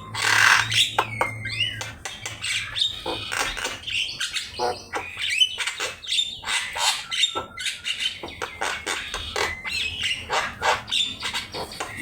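Javan myna singing in a fast, unbroken chatter: harsh squawks and rasps mixed with short whistled notes that slide up and down, a varied string of phrases.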